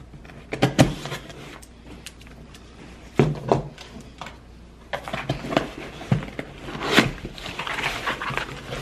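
Handling noises from a box being fetched and handled: a few separate knocks and thumps, then rustling near the end.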